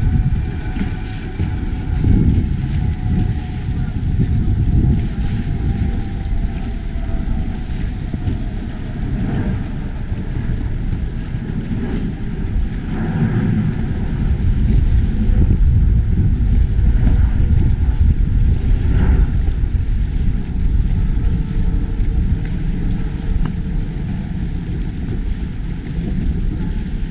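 Wind buffeting an action camera's microphone on open water: a loud, uneven low rumble that swells and drops throughout.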